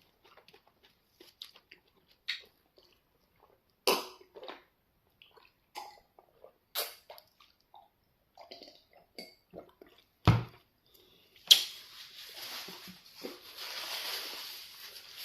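Close-up eating sounds of amala fufu with okra soup eaten by hand: scattered soft smacks and sticky clicks, with a loud thump about ten seconds in. From about eleven seconds on, a steady hiss of water sloshing.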